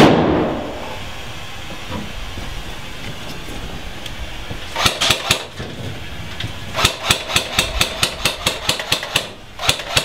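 A loud bang with a long echoing tail at the start, then airsoft gunfire: a quick group of about four shots about five seconds in, a run of about a dozen shots at roughly five a second, and a few more near the end.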